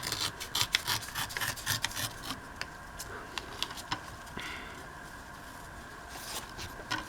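Paper being handled and trimmed on a tabletop: a run of small taps, clicks and scrapes, then a short rubbing scrape about four seconds in.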